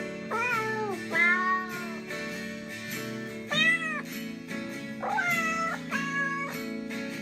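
Cat meows, about five of them at varying pitches, over steady background music.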